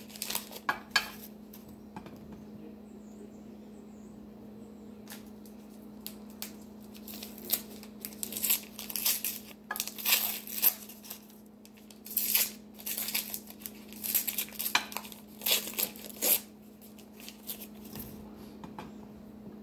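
Paper wrappers being peeled and torn off ice cream sandwiches: irregular bursts of crinkling and tearing paper, with a steady low hum underneath.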